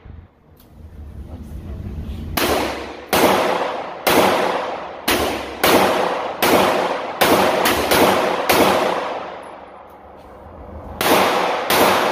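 Gunshots from a firearm: a string of about ten shots at an uneven pace, each followed by a long echoing tail, then two more shots after a pause of a couple of seconds.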